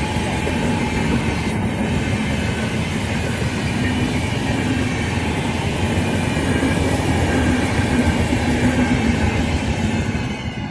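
The 22412 New Delhi–Naharlagun AC Superfast express's coaches passing close by at speed: a loud, steady rumble of wheels on rail with a metallic whine held over it.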